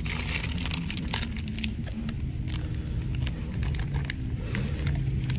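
A paper flour bag crinkling and rustling in the hand as flour is shaken out of it, in irregular clicks and crackles over a steady low rumble.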